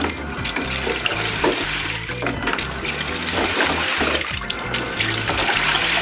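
Water running and sloshing in the drum of a top-loading washing machine, a steady rushing wash of water, with background music underneath.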